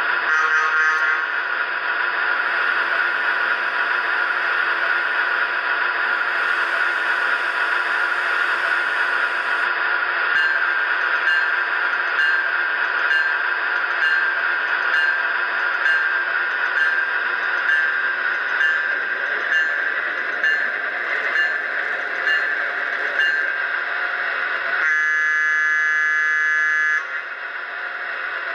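An MTH HO-scale Milwaukee Road Bi-Polar electric locomotive model's DCS sound system playing its running sounds, a steady electric hum. A short horn-like note comes right at the start. A faint tone repeats about every three-quarters of a second through the middle. Near the end a horn sounds for about two seconds and stops abruptly.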